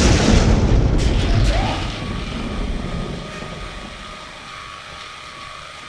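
Thunder: a loud, low rumble right after a lightning crack, with a few crackles about a second in, slowly fading away.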